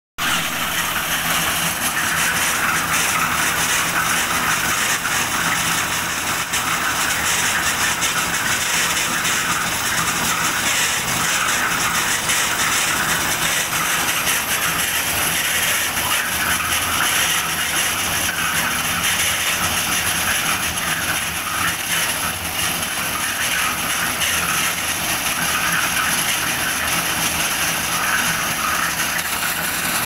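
Concrete mixer machine with a two-pole tower lift running steadily, its engine driving the hoist that hauls the material bucket up the tower.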